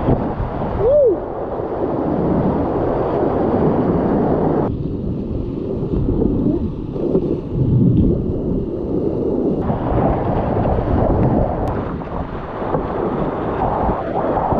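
Whitewater rapids rushing and churning close around a kayak running them, picked up by a head-mounted camera's microphone.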